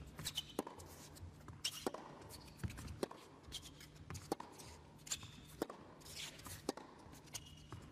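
Tennis rally on an indoor hard court: a string of sharp knocks from racket strikes and ball bounces, about one every half second to second, with brief squeaks from players' shoes.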